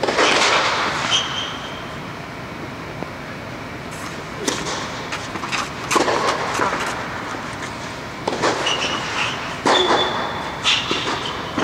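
Tennis rally on a clay court: sharp pops of racket strings hitting the ball and the ball bouncing, every second or two, some with a brief high ringing ping, over a steady background rumble.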